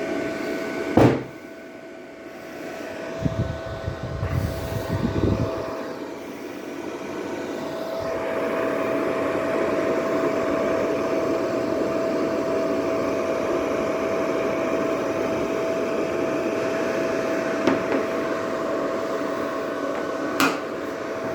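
Small welding machine running with a steady whine and hiss that grows louder about eight seconds in. A sharp click comes about a second in, and a few dull knocks come around four to five seconds.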